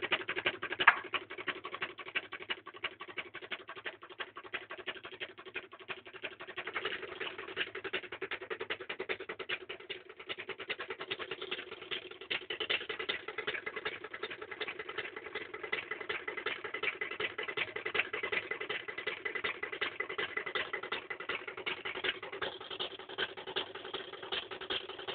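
Reed-switch pulse magnet motor running: a rapid, even clicking over a steady hum.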